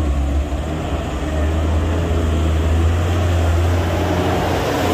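Mitsubishi Canter HDX light truck's diesel engine labouring under heavy load up a steep, loose-gravel climb: a steady low drone that gets a little louder as the truck comes close alongside near the end.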